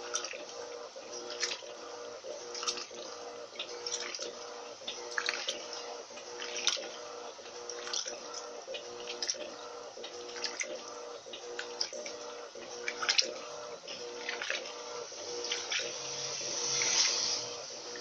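Electrolux LT12B top-loading washing machine agitating a full load of laundry in water on the high water level. A steady motor hum runs under irregular splashing and sloshing, about one or two splashes a second.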